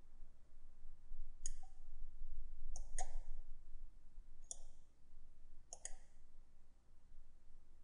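Computer mouse button clicking: about six short, sharp clicks spread over several seconds, some in quick pairs, with a faint hum.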